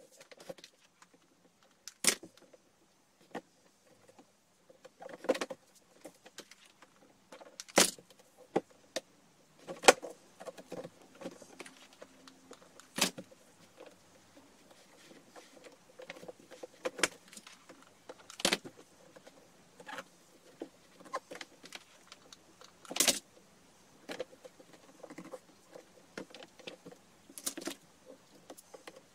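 Hands working a plastic basket and its handle while fitting a white strip to it: irregular clicks, taps and rustles, with a sharper plastic click every few seconds.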